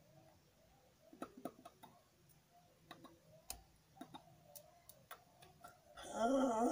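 Scattered soft clicks and smacks from the lips and tongue as words are mouthed without voice. About six seconds in, a voice starts up loudly with a wavering pitch, unclear, speech-like vocalizing.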